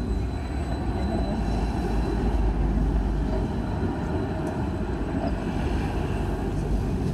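A tram rolling past at a city tram stop, a steady low rumble.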